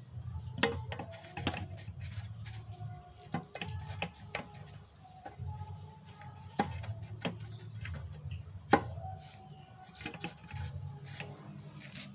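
Turbo intercooler from a Nissan Frontier D22 handled by hand, its rubber hose and metal clamp worked: scattered sharp clicks and knocks, a few of them louder, over a low rumble that comes and goes.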